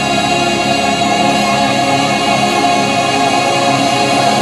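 Loud choral music: a choir singing long held chords over the show's musical soundtrack.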